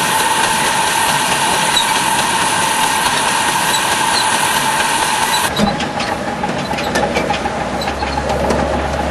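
Live-steam miniature locomotive hissing steadily, with a steady tone in the hiss. About five and a half seconds in the sound changes abruptly to the train running along the track, with quieter hiss and many sharp clicks from the wheels and track, and a low hum near the end.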